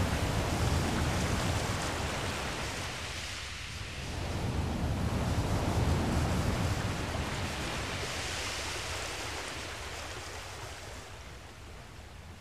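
Rushing wind and water noise with a heavy low rumble, swelling and fading in slow surges and easing off toward the end.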